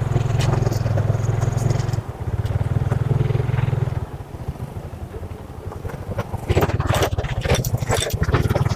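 Motorcycle engine running under throttle on a rough road, easing off about four seconds in. A burst of sharp knocks and rattles comes near the end.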